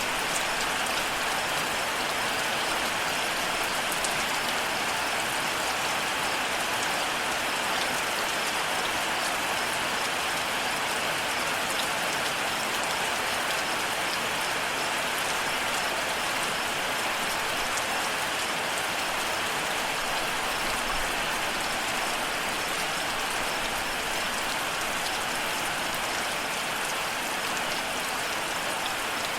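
Steady rain falling, an even hiss of many drops that neither builds nor fades.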